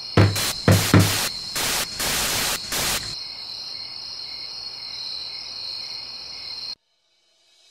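Three dull knocks on an old wooden-cabinet television set, then three bursts of television static hiss, over a steady high-pitched background tone; everything cuts off suddenly near the end.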